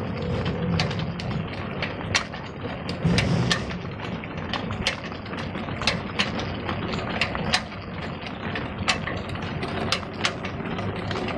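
Belt-driven wood-cutting machinery powered by a Ruston Hornsby diesel engine, running steadily: the flat belt and line-shaft pulleys turn with a continuous mechanical rumble. Frequent sharp, irregular clicks sound over it, with a louder low swell about three seconds in.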